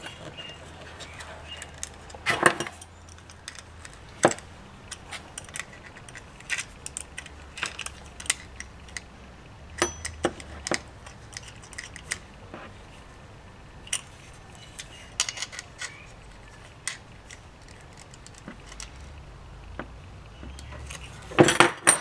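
Irregular small clicks and metallic clinks of a panel-mount push-button switch being fitted and tightened into a plastic push-button case, the plastic housing and metal nut knocking in the hands. A louder burst of clatter comes near the end.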